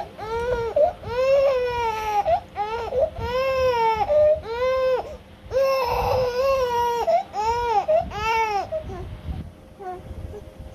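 Baby crying in a run of short wails, each rising and falling in pitch, about a dozen with a couple of longer ones, trailing off near the end.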